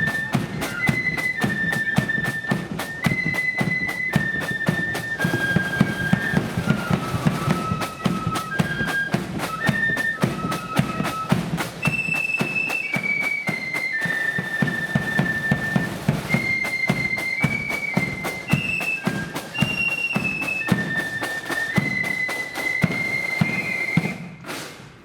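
Marching flute band playing a tune in unison, with the flute melody carried high over rapid snare drumming and a pounding bass drum. The music stops about a second before the end.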